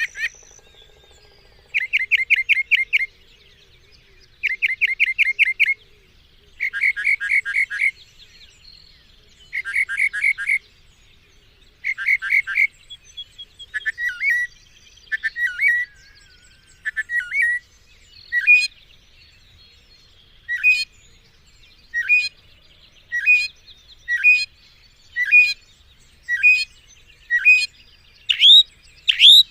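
Mockingbird singing: fast trilled phrases, each about a second long, repeated several times with short pauses, then a run of single sharp notes about one a second, the last few louder and rising.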